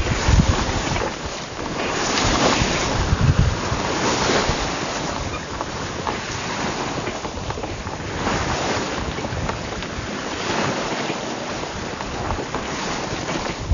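Sea water rushing and splashing past a small sailing boat under way, the noise swelling and easing every few seconds, with wind buffeting the microphone.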